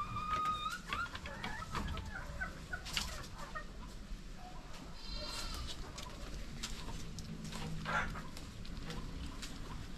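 Chickens clucking and calling in a farmyard, with short bird chirps in the first few seconds. Light knocks of a goat kid's hooves on a raised wooden slatted floor.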